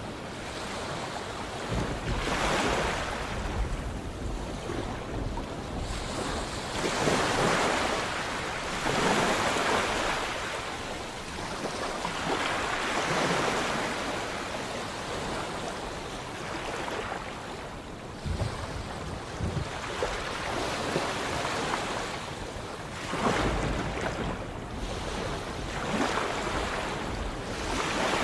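Sea waves breaking and washing ashore, surging up and dying back every few seconds.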